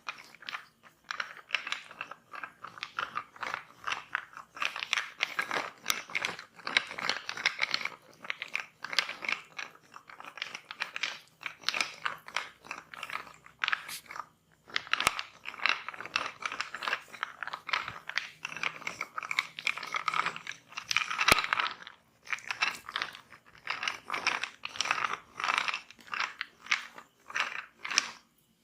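Hands rubbing and kneading oiled skin in a massage: a dense, irregular crackle of quick strokes, with a few short pauses.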